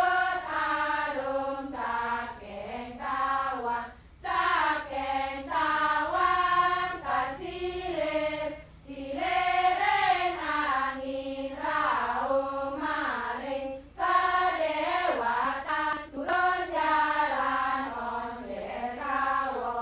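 A chorus of Balinese women singing a sanghyang trance chant in unison, in long sung phrases broken by short pauses about every four to five seconds.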